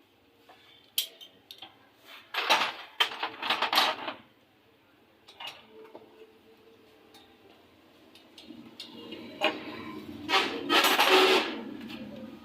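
Metal tools and engine parts clinking and clattering against each other, in clusters about two to four seconds in and again, longer and louder, near the end.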